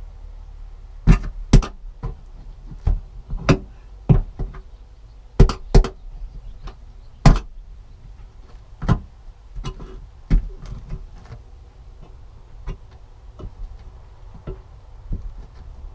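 Irregular knocks and clunks, like hand work with tools on the van's bodywork: about a dozen sharp hits in the first eight seconds, then lighter, sparser taps, over a steady low hum.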